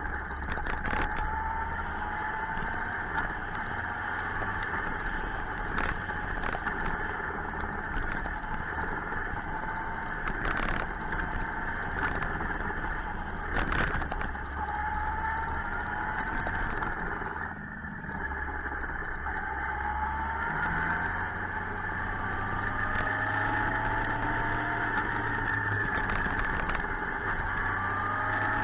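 Suzuki GSX-R 1000 motorcycle being ridden over a steady rush of wind and road noise. The inline-four engine's pitch rises several times as it accelerates, mostly in the second half.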